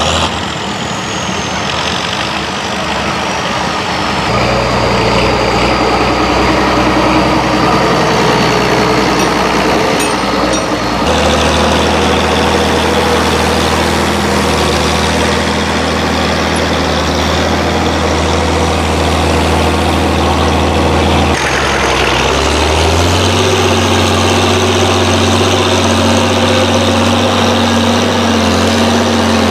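Fiat 1300 DT tractor's six-cylinder diesel engine running steadily under load as it pulls an implement through the soil. The sound changes abruptly twice, and the engine note rises shortly after the second change.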